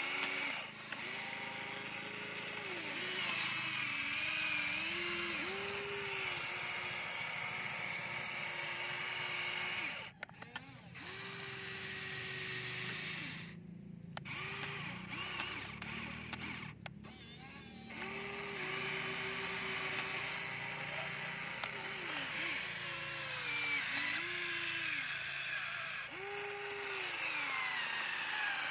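Huina radio-controlled toy excavator's small electric motors whining in short runs that start and stop, some gliding up or down in pitch, as the arm and bucket move.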